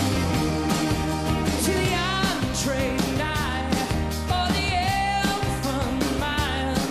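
Live indie rock band playing with drums and cymbals, acoustic and electric guitars and bass. A male lead voice starts singing about two seconds in.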